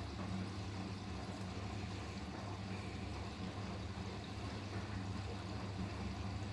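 Siemens iQ500 washing machine running a rinse cycle: a steady low hum with water noise.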